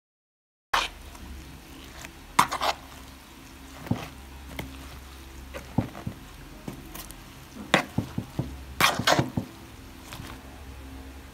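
Kimchi vegetables being mixed with chilli paste in a plastic bowl: wet cabbage and julienned vegetables shifting, with irregular sharp knocks and scrapes of a spatula against the bowl. The sound begins abruptly under a second in.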